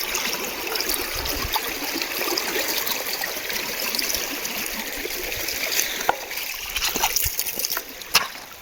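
River water running steadily, with a few sharp clicks near the end.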